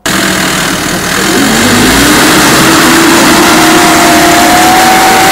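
Diesel engine of a Mercedes-Benz Unimog fire truck pulling away: the engine note climbs about a second in and then holds steady, over loud engine and road noise.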